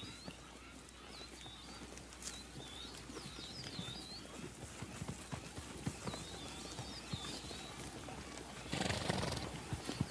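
Plains zebras on grassland: faint hooves stepping, with small birds chirping over and over in the background. About nine seconds in, a zebra gives a short, breathy call.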